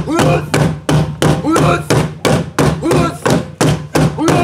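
Shangaan traditional dance drumming: drums struck in a steady rhythm, about two to three beats a second, with short chanted vocal calls from the performers after the beats.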